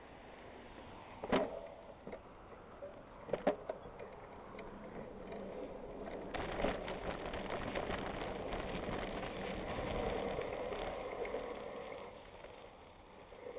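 Bicycle tyres rolling and crunching over loose gravel, louder and crackly from about six seconds in until near the end. Two sharp knocks come earlier, about a second and three and a half seconds in.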